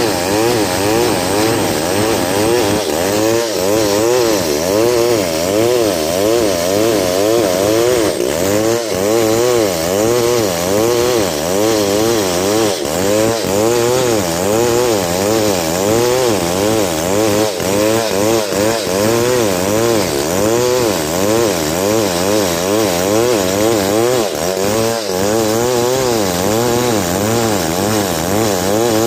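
Stihl 070 two-stroke chainsaw running under load, cutting lengthwise along a log; the engine note rises and falls over and over, about once a second, as the saw works through the cut.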